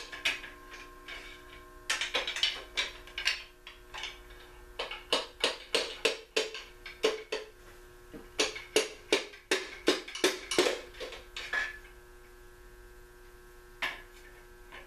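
Socket ratchet clicking in runs of quick strokes, with metal clinking, as bolts are worked on a Packard V8 engine block. A steady hum runs underneath.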